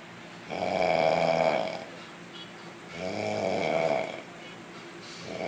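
A sleeping pet snoring in a steady rhythm: a buzzy snore of a little over a second about every two and a half seconds, twice, with a third starting near the end.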